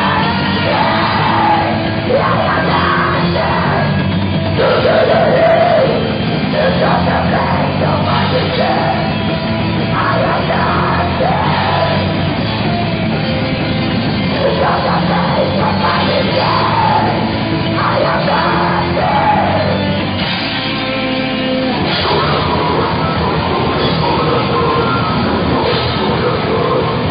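Heavy metal band playing live, loud and dense, with yelled vocals over the instruments at times. The bass end drops out briefly about twenty seconds in.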